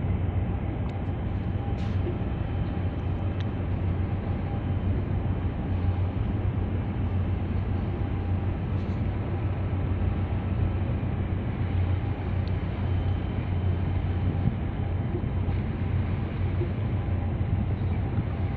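Steady low rumble of a large crude oil tanker's engine and propeller as the ship passes close by at slow harbour speed, with a faint steady hum above it.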